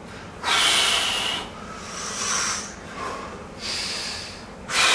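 A man breathing hard while holding bodybuilding poses: several loud breaths in and out, the first and last the loudest.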